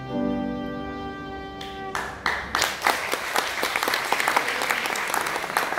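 Violin and piano hold the final notes of a slow lullaby, which end about two seconds in. An audience then breaks into applause.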